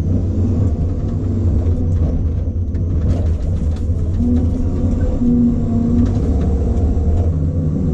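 Diesel engine and hydraulics of a log loader running under load, heard from inside its cab, with a steady low drone and a pitch that rises and falls as the boom and grapple work the logs. A few faint knocks come about three seconds in.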